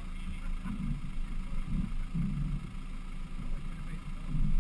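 Land Rover Defender 110's engine running at low revs as the vehicle creeps slowly at the top of a steep rocky descent, heard muffled from a roof-mounted camera; a low, uneven hum.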